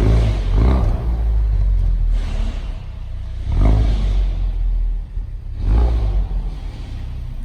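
Ford Focus RS Mk3's turbocharged 2.3-litre four-cylinder revving in repeated surges over a deep rumble, three rises in pitch and level: the car running on a dyno.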